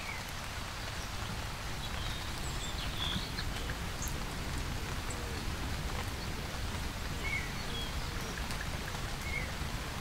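Steady rain falling on and around a fabric ground hide, with a few short bird calls scattered through it.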